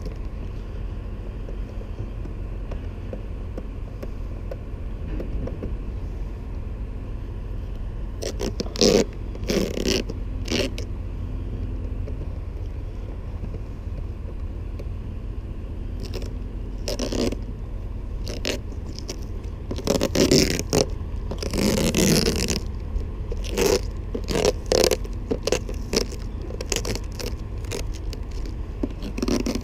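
Irregular scraping and rustling close to the microphone, in short bursts over a steady low rumble.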